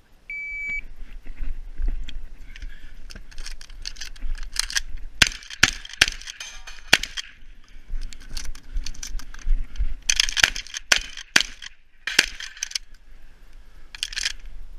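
Shot timer beeps once, then a 12-gauge shotgun fires a run of shots in quick clusters, with pauses between the clusters while shells are loaded by hand.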